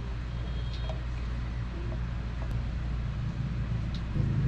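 A steady low hum with a faint hiss over it, growing a little louder near the end.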